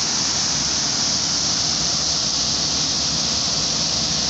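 Large water fountain spraying and splashing: a steady hiss of falling water.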